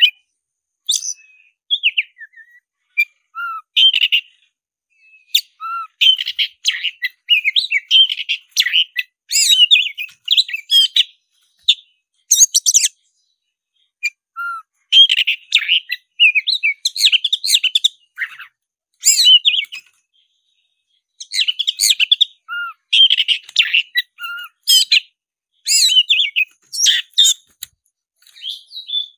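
Black-bellied Oriental magpie-robin (kacer dada hitam) singing in rapid bursts of varied high phrases, separated by short pauses, with a few brief lower notes.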